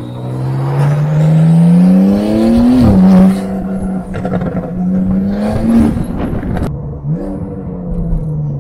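Porsche 992's flat-six engine breathing through an IPE straight-through full exhaust, accelerating hard: the revs climb for about three seconds, drop sharply at an upshift, and climb again. Near the end the throttle closes and the revs fall, with one short blip in between.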